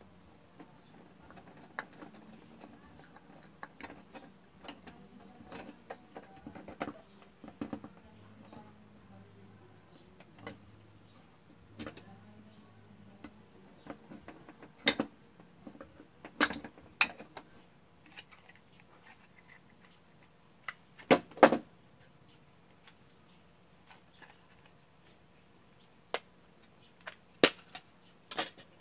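Small clicks, taps and scrapes of a screwdriver working the screws of a plastic lampholder and of plastic wiring devices being handled, with a few sharper plastic knocks, the loudest a quick double knock about two-thirds of the way through.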